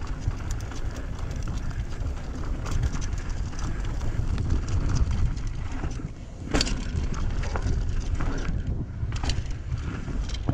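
Mountain bike ridden fast down a rocky dirt trail: wind buffeting the camera microphone, tyres crunching over loose rock and gravel, and the bike rattling, with a sharper knock about six and a half seconds in.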